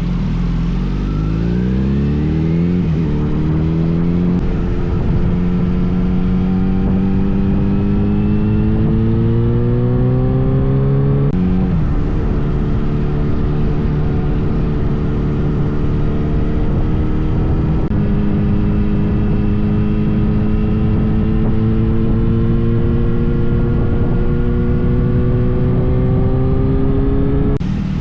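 Kawasaki Z900RS inline-four engine accelerating through the gears. Its pitch rises quickly and drops at an upshift about three seconds in, climbs again to a second upshift about eleven seconds in, then pulls on with the pitch rising slowly. A steady low rumble of noise runs underneath.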